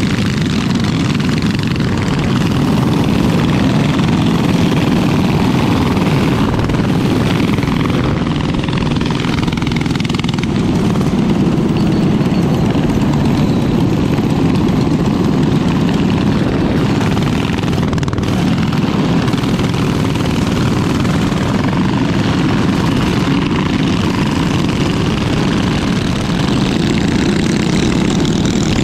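Mini bike engine running steadily under way, a constant low rumble without pauses.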